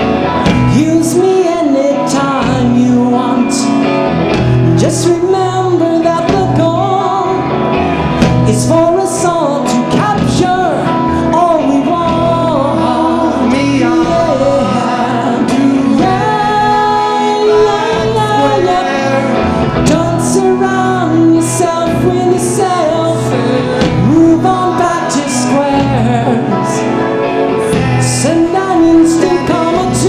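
A live band playing a soul-funk song, with male and female voices singing over drums, guitar and Hammond organ.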